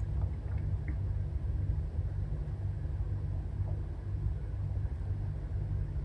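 Steady low rumble and hum with a faint hiss over it, unchanging throughout.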